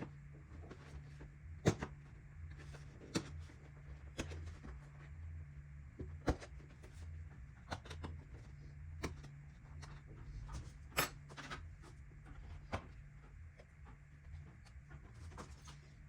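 Hand tools and metal engine parts clicking and knocking every second or so as the right-hand case and clutch of a 50cc two-stroke motor are taken apart, over a steady low hum.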